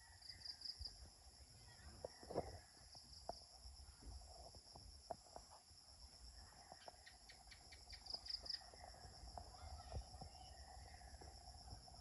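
Faint steady chirring of insects such as crickets, with a high trill that swells briefly near the start and again about two-thirds of the way through. Scattered faint clicks and snaps sound underneath.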